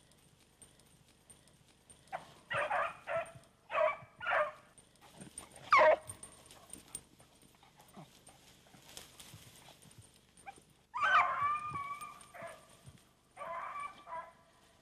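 Beagle hounds giving voice while hunting through cover: short yelps and bays in scattered bursts, with a loud falling cry about six seconds in and another strong cry around eleven seconds.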